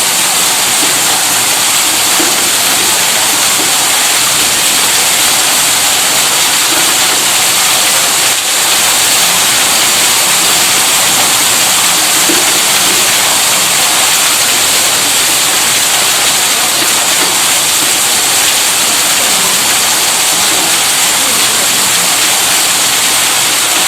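Steady rushing of gushing water, even and unbroken, with a bright hiss on top and no distinct hum or rhythm.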